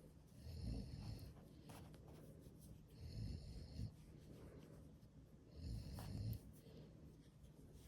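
A man snoring in his sleep: three snores about two and a half seconds apart, each lasting about a second.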